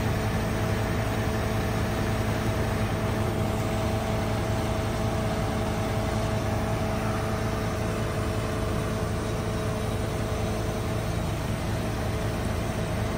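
Rear-loader garbage truck's engine idling steadily: an even low hum with a faint higher whine held over it.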